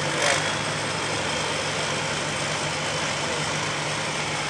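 John Deere 4020 tractor engine idling steadily, with a brief louder burst of noise right at the start.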